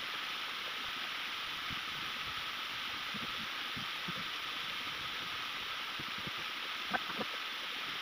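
Steady rush of a small mountain waterfall splashing onto rocks and the shallow stream below it, with two light knocks in quick succession near the end.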